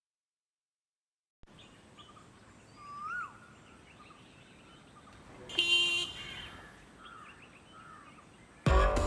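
After a second and a half of silence, quiet outdoor ambience with birds chirping and calling, one louder call about five and a half seconds in, and a faint steady high-pitched tone. Background music starts near the end.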